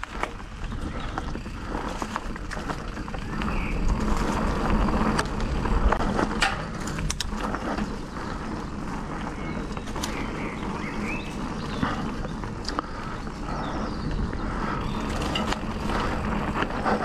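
Mountain bike riding fast down a dirt forest trail: tyres rolling and crunching over dirt and leaves under a steady low rumble, with frequent sharp clicks and rattles as the bike is shaken over bumps.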